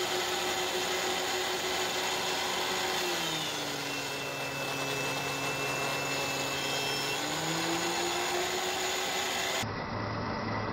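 Benchtop thickness planer running: its steady motor hum sags in pitch for about four seconds as a block of wood is fed through and cut, then climbs back once the load comes off. Near the end the sound changes abruptly to a duller hum.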